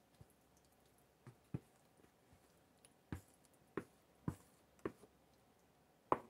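Wooden spoon scooping thick, cheese-sauced macaroni from a plastic bowl into a glass baking dish: soft wet squishing, with about eight short irregular knocks of the spoon against the bowl and dish.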